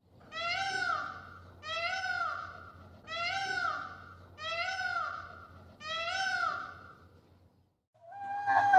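A green peafowl calling five times in a row, each call rising then falling in pitch, about a second and a quarter apart. Near the end a donkey starts to bray, louder than the peafowl.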